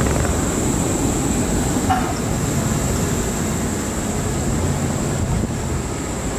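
Electric trams rolling along street track: a steady rumble of wheels on rail and running gear, with a brief click about two seconds in.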